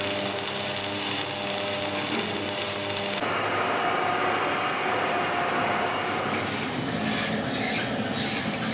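Workshop machinery running steadily: a power tool or machine hum with a high hiss, which changes abruptly to a different steady machine noise about three seconds in.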